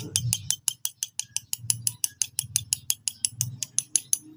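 Ratchet wrench clicking rapidly and evenly, about eight clicks a second, until it stops shortly before the end.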